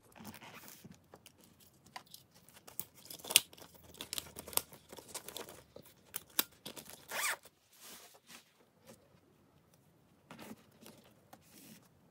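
Pens, a mechanical pencil and a small plastic lead case being handled and slotted into a fabric pencil case's elastic loops and mesh pocket: irregular light clicks and fabric rustling.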